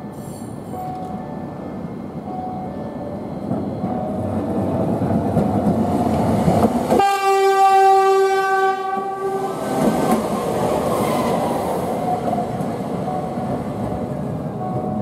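Toei Arakawa Line 7700-series tram running on its rails, getting louder as it comes near and passes. About seven seconds in, a loud steady tone with many overtones sounds for about two and a half seconds, then the running noise goes on.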